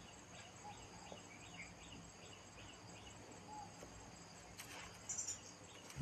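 Faint steady chirring of insects in the vegetation, heard as thin, continuous high tones, with a row of small faint chirps through the first half and a brief rustle near the end.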